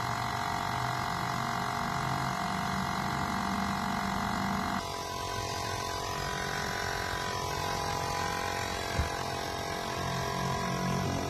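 USB-rechargeable mini portable air compressor (tyre inflator) running steadily with a buzzing motor-and-pump sound; its tone changes abruptly about five seconds in, and there is a single click toward the end.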